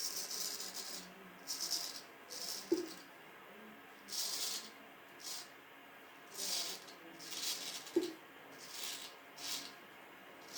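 Vintage W.J. Guy straight razor shaving a 9–10 day beard on the neck: about a dozen short, scratchy strokes of the blade through stubble, with two small clicks along the way.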